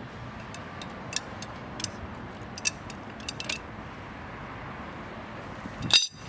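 Small metal parts and hand tools clinking, with scattered single sharp clicks over a steady outdoor hiss and a louder metallic clatter near the end.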